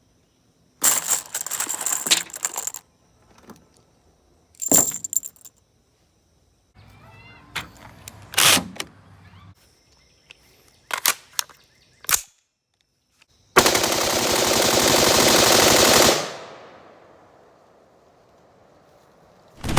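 Gunfire: scattered sharp shots and short clusters, then a long rapid burst of automatic fire about two-thirds through that rings off slowly, and another rapid burst starting at the very end.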